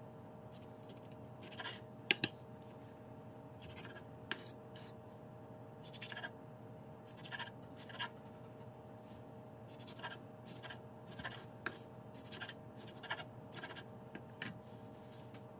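Chef's knife slicing red peppers on a wooden cutting board: irregular soft cuts, scrapes and taps of the blade against the board, a couple of sharper taps about two seconds in, over a faint steady hum.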